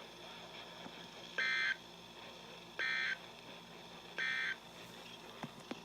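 Emergency Alert System end-of-message tones from a NOAA Weather Radio: three short, identical buzzy data bursts about a second and a half apart, marking the end of the flash flood warning broadcast.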